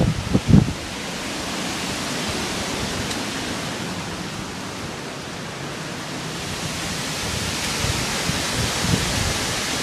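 Hurricane wind: a steady rushing hiss that swells over the last few seconds, with wind buffeting the microphone in the first second.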